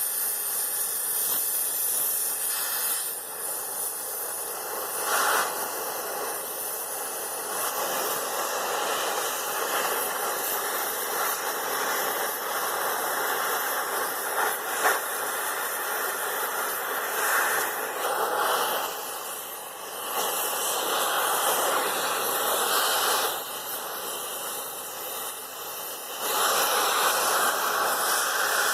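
A cutting torch hissing steadily, its level stepping up and down in stretches of several seconds.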